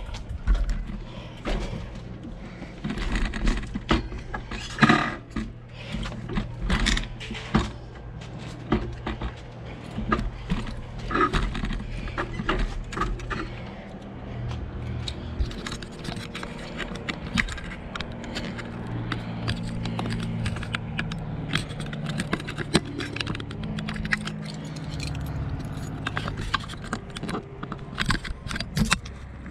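Close handling noise as a bicycle is parked at a metal bike rack: a run of clicks, scrapes and jangles, densest in the first half. After about halfway it gives way to a steadier low hum.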